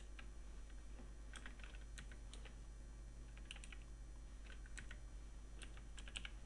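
Faint keystrokes on a computer keyboard: irregular little clusters of key presses with short pauses between, as numbers are typed in.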